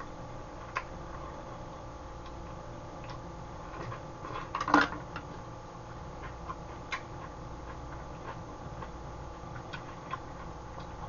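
Eating with metal utensils: scattered light clicks of a metal spoon against a stainless steel bowl, with one louder short burst of noise about five seconds in, over a steady faint hum.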